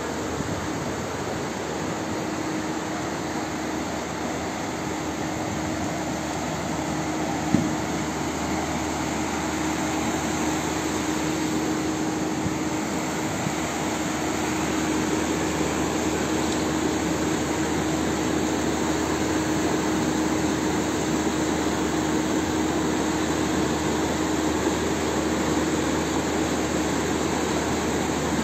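Steady rushing of floodwater in a fast, swollen torrent. It grows a little louder partway through, under a faint steady hum, with one sharp click about seven and a half seconds in.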